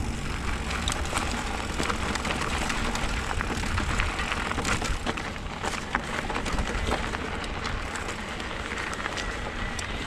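Wind rumbling on a helmet camera's microphone, with scattered crackles and clicks.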